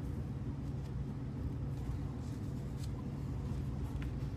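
A steady low hum with a few faint, light taps from wooden frame pieces being handled on a workbench.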